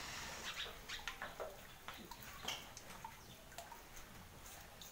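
Faint scattered clicks and knocks from a stepladder as a person climbs down it, after a soft hiss that stops about half a second in.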